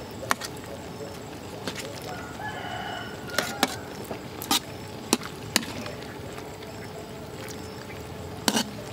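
Metal ladle clinking against a metal tray as soup is ladled, several sharp clinks at irregular intervals. A chicken calls briefly about two and a half seconds in.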